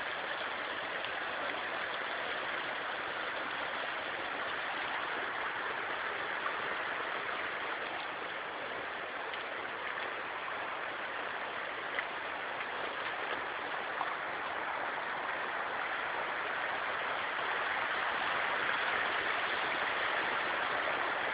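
Shallow rocky mountain stream flowing over stones: a steady rush of water, with a few faint clicks.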